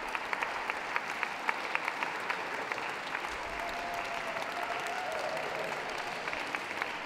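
Audience applauding: many hands clapping steadily, with individual claps standing out.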